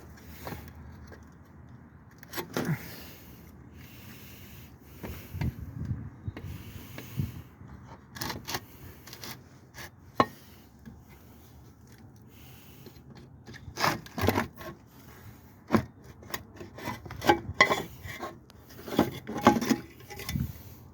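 Irregular scraping and rubbing with scattered sharp clicks and knocks, the sound of hand work with tools and parts, busiest near the end.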